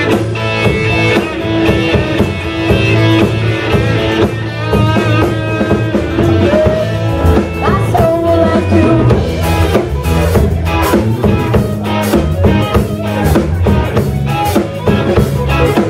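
Rock band playing a song: a drum kit keeping a steady beat under electric guitar.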